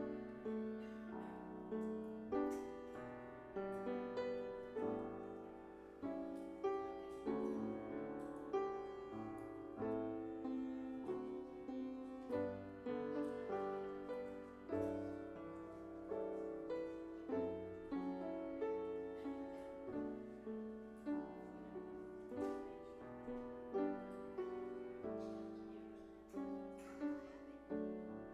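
A piano playing slow music, chords and notes struck about once or twice a second and left to ring and fade.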